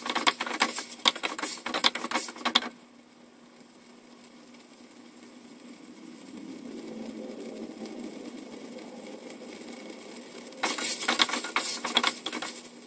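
Wooden spatula scraping and knocking chicken pieces against a stainless steel pot as they are stirred, for about three seconds, then a faint sizzle as the chicken's juices boil away, then a second bout of stirring near the end.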